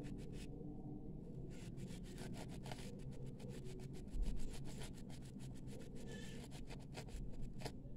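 Copper wire scouring pad rubbed rapidly back and forth on a brass bangle, a fast scratchy rasping of many short strokes as the metal is polished to a shine. A dull bump about four seconds in.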